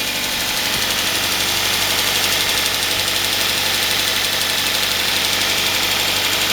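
2006 Kia Spectra's 2.0-litre Beta II four-cylinder idling steadily, freshly cold-started through a new Megan Racing equal-length header and downpipe, with a throaty exhaust note.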